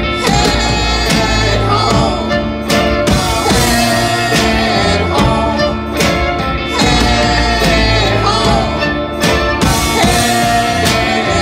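Live band music: banjo, electric guitars, drum kit and fiddle playing together, loud, with steady drum strikes and a wavering lead line above the chords.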